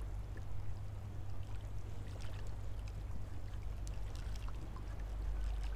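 Water trickling and lapping, with scattered small ticks and splashes over a steady low rumble.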